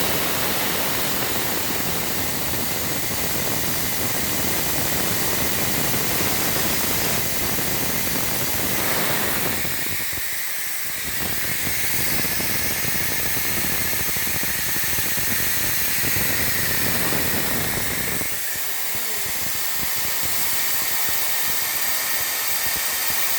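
Steady hissing machinery noise with a low rumble under it. The rumble drops away for about a second near the middle and thins again for the last few seconds.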